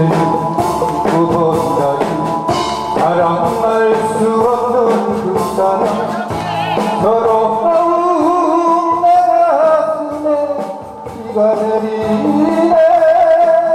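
A man singing into a handheld microphone over instrumental accompaniment, holding long notes with vibrato.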